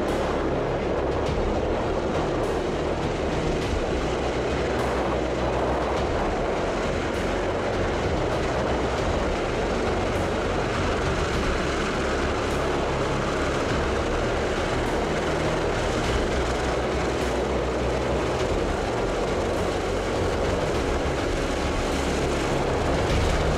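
The four Wright R-3350 18-cylinder radial piston engines of a Lockheed Super Constellation run steadily at taxi power as the airliner rolls along the tarmac, propellers turning.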